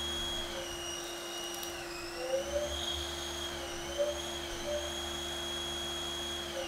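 Haas ST-10 CNC lathe running a turning pass under coolant: a steady high-pitched spindle whine over a hiss, its pitch dipping and rising a little as the cut goes on, then starting to fall as the spindle slows at the very end.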